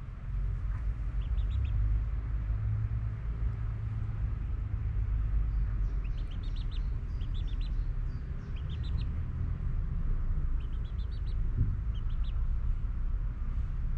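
Steady low rumble, with short, quick runs of high chirps from small birds every few seconds.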